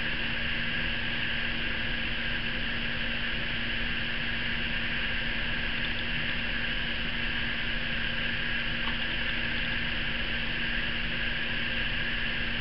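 Steady hiss with a constant low hum: background room tone and recording noise, with no distinct sound events.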